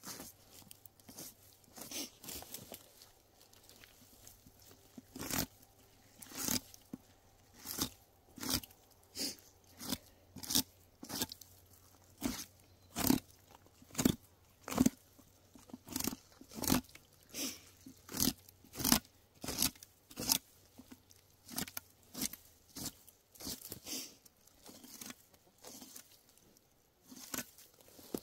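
Knife skinning a black bear carcass: a run of short, crisp cutting and tearing strokes, about one or two a second, as the blade slices the hide free of the meat and ribs.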